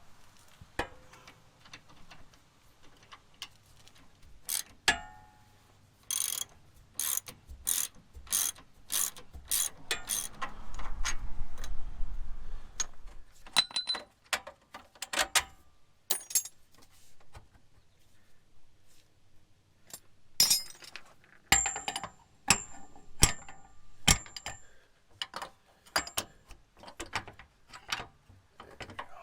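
Hand ratchet wrench clicking in runs, about two loud clicks a second at times, with scattered metal tool clinks, as the track bar bolts are worked loose.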